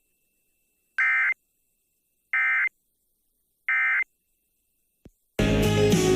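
Emergency Alert System end-of-message data: three identical short electronic data bursts, each under half a second and about 1.3 s apart, marking the close of the broadcast alert. A brief click follows, and country music comes back in about five seconds in.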